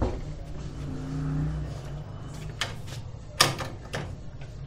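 A low engine hum from a vehicle, swelling briefly about a second in. Then three sharp knocks at a metal-framed glass door, the loudest in the middle, about three and a half seconds in.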